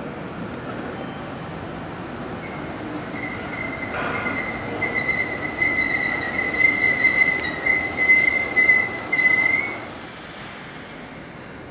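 Meitetsu electric commuter train's steel wheels squealing on the rails: a high, piercing squeal that starts a couple of seconds in, wavers in loudness and stops abruptly near the end, over the rumble of the running train. A single sharp click sounds about four seconds in.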